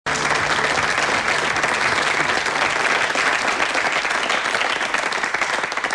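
Studio audience applauding: dense, steady clapping from many hands, easing slightly near the end.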